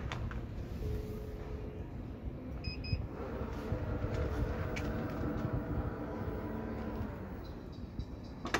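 Aftermarket power back door on a Toyota Fortuner closing: a quick double warning beep, then the electric drive motor whining steadily for about four seconds as the tailgate swings down, and a sharp knock near the end as it latches shut.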